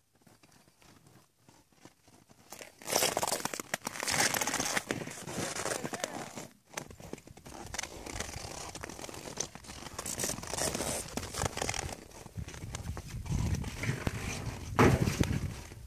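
Irregular rustling and crunching noise, starting about three seconds in and surging unevenly to the end.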